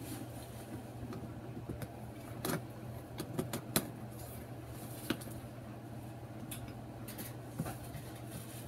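A few light clicks and knocks of hard plastic animatronic parts being handled, spaced a second or more apart, over a steady low hum.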